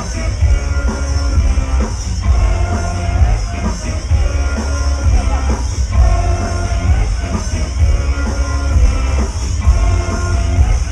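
Electro house music played loud over an open-air festival sound system, with a heavy, steady bass and a driving beat under repeating synth lines.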